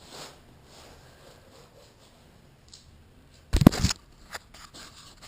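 Handling noise: a few faint small clicks and one short loud thump-and-rub about three and a half seconds in, lasting about half a second, as the cut-open tire and its rubber chunks are handled.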